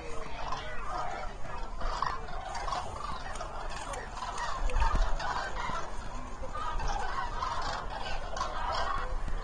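A large flock of common cranes calling, many trumpeting calls overlapping in a continuous chorus. A low rumble under the calls swells about halfway through.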